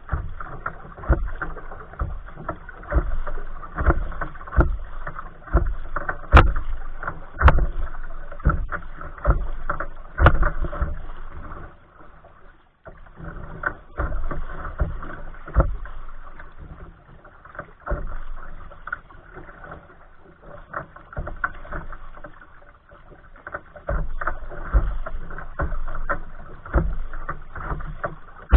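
Choppy waves slapping and splashing against a kayak's hull, picked up by a camera on the bow deck: an irregular run of knocks and splashes, one or two a second, with a short lull about twelve seconds in.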